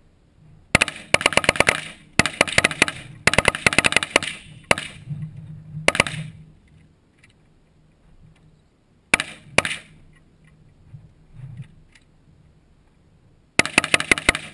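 Rifle gunfire from AK-47 and AR-15 rifles. Three rapid strings of shots come in the first few seconds, followed by two single shots about a second apart. Two more shots come close together about two-thirds of the way in, and a final rapid string near the end.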